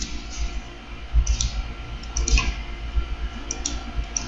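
Computer mouse and keyboard clicks: a few pairs of short sharp clicks about a second apart, over a low steady rumble.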